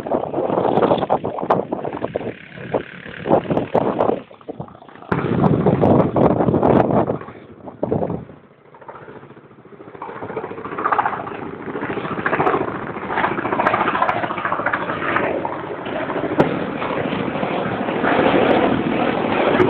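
Wind buffeting the microphone in gusts, dropping away twice in the first half. Over it, the steady engine and rotor noise of a CH-46 Sea Knight tandem-rotor helicopter in flight, more even in the second half.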